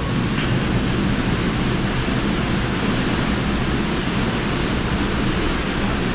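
Steady rush and deep rumble of water discharging through a 60-inch fixed cone valve running at full flow.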